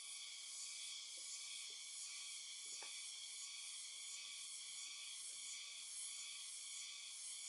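A steady, high-pitched chorus of insects buzzing, with a faint click about three seconds in.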